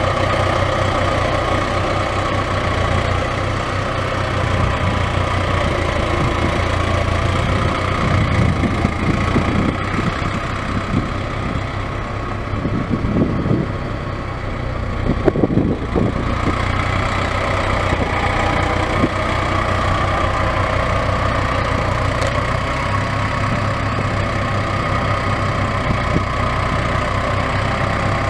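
Case IH MXU100 tractor's 4.5-litre four-cylinder turbo diesel idling steadily, with a few brief knocks about halfway through.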